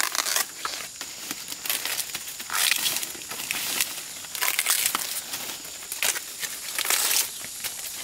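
Dry leaves and plant stalks crackling and rustling as they are pulled and handled by hand, in irregular bursts about every second.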